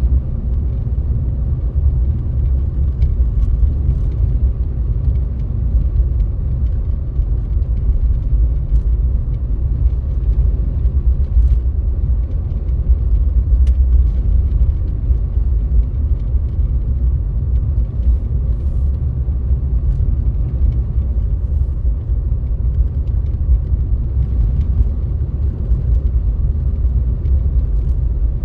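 Car driving through a snowstorm: a steady low rumble of tyres, road and engine with no change in pace.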